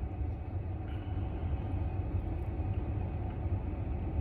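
Steady low vehicle rumble heard from inside a car's cabin.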